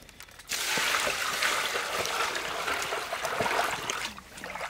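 Water poured from a plastic bucket into a large aluminium basin of raw chicken pieces: a steady splashing rush that starts about half a second in and stops about four seconds in.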